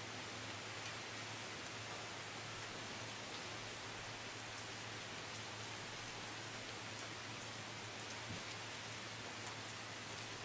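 Steady rain falling, an even hiss with scattered small drop ticks through it.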